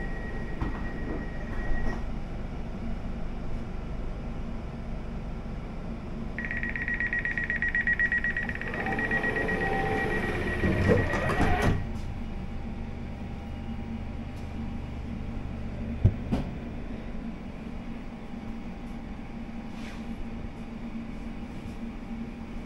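Elizabeth Line Class 345 train doors: a steady high beep stops about two seconds in, then a rapid high beeping plays for about five seconds as the doors close and cuts off sharply when they shut. The carriage then hums steadily, with a single knock a few seconds later.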